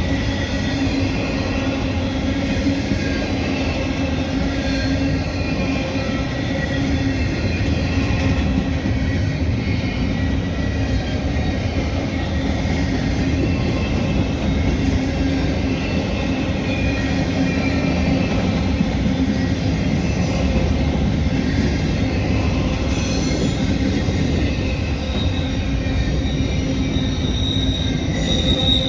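CSX freight train rolling past: a steady rumble of wheels on rail with a high wheel squeal that grows louder near the end.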